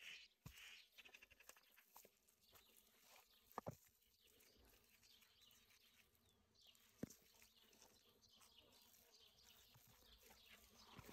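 Near silence: faint outdoor background hiss with a few soft, short clicks.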